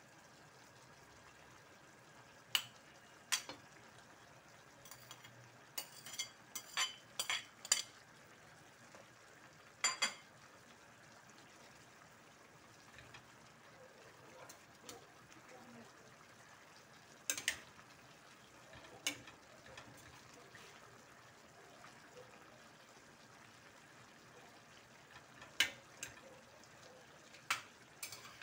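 Metal spoon clinking against a china plate and the rim of a stainless steel pan as shrimp are scooped and stirred into a coconut-milk vegetable stew. The clinks are sharp and scattered, with a quick run of them about six to eight seconds in, over the faint steady hiss of the simmering pan.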